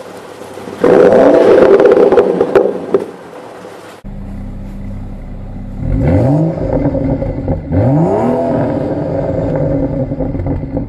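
BMW 335i F30's turbocharged straight-six, through an M Performance and Akrapovic exhaust, revved while stationary: one rising rev with crackles as it comes off throttle, then a steady idle broken by two quick throttle blips.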